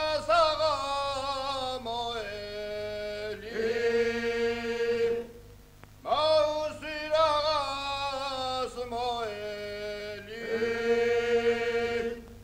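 Chant-like singing in long held notes that step down in pitch, in two phrases of about five to six seconds each with a short pause between them.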